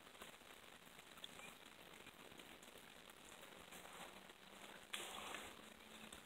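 Near silence: faint creek-side ambience with a light crackling patter, and a brief louder noise about five seconds in.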